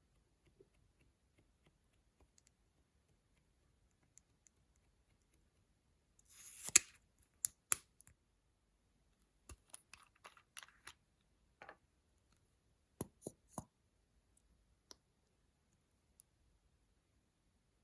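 Scattered sharp clicks and taps from makeup and its containers being handled, with a brief scratchy sound about six seconds in that ends in the loudest click, then a few small clusters of clicks, three of them close together near the end.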